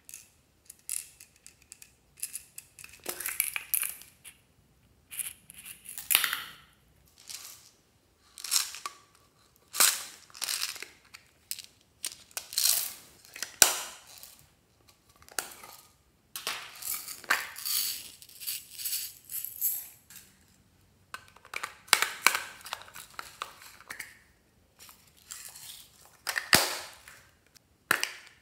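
Small beads, charms and sequins rattling in little plastic pots and pouring out onto a dish, in a series of short clattering rattles with sharp clicks between them.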